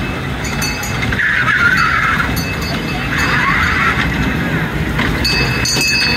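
Kiddy train ride running on its track amid fairground noise, with two rough swells of noise about a second and three seconds in.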